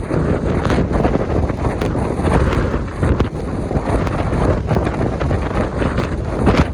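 Strong storm wind buffeting the microphone in loud, continuous gusts, over the rushing of rough surf on Lake Erie's shore.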